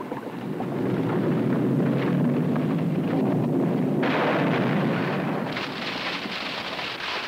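Rumbling, hissing sound effect of a smoking witches' cauldron erupting. It swells about a second in, a louder hiss joins about four seconds in, and more hiss comes in near the end.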